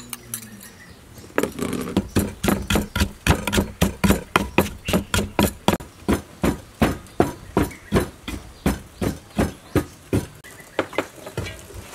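Pestle pounding in a mortar, a steady run of knocks at about three a second starting about a second and a half in, crushing chili, garlic and sugar into a dipping sauce.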